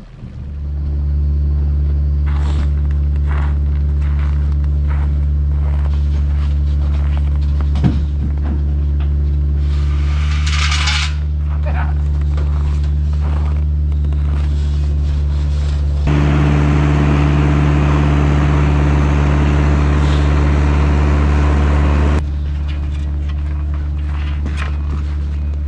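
Kubota KX121-3 mini excavator's diesel engine running steadily as the machine lifts a heavy timber rafter on a jib boom. There is a brief hiss about ten seconds in. For about six seconds past the middle the engine runs louder and rougher, then drops back.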